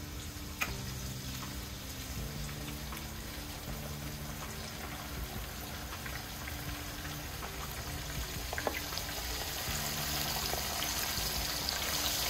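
Hot oil sizzling and bubbling steadily in a cast-iron pot with fish frying in it, growing louder toward the end as a flour-dredged mullet goes into the oil, with a few light clicks.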